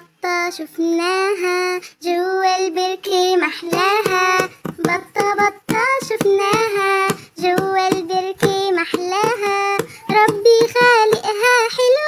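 A child singing a children's song in short sung notes, most of them held at about the same pitch, with brief breaks between phrases.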